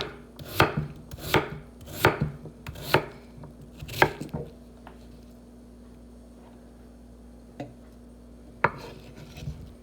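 Kitchen knife chopping potatoes on a cutting board: about six strokes a little under a second apart, stopping about four and a half seconds in, with one more knock near the end. A faint steady hum underneath.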